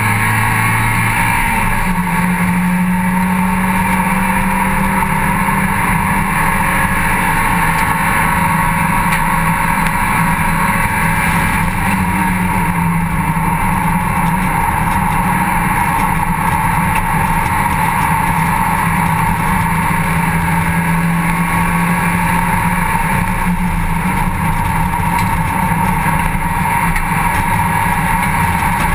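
Mazda MX-5 cup racer's four-cylinder engine heard from inside the open cockpit, running hard at high revs at racing speed, with a rise in pitch about a second and a half in. Steady rushing wind noise lies under the engine.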